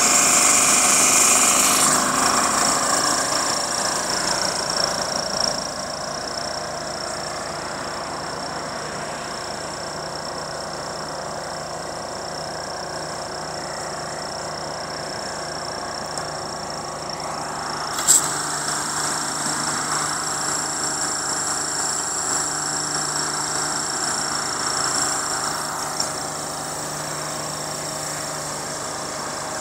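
Van-mounted high-pressure hot-water marker-post cleaner running, its engine and spray unit going steadily with a high-pitched whine over the engine note. A sharp click about two-thirds of the way through, after which it runs louder for several seconds.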